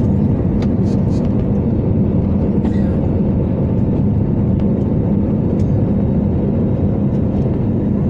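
Steady low rumble of a moving vehicle heard from inside, with a few faint ticks.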